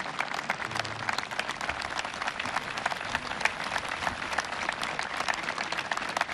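Large audience applauding, a dense, steady patter of many hands clapping.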